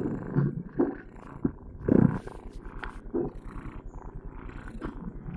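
Domestic cat snoring: a low, fine rattle that never stops, with several louder, uneven breaths rising out of it.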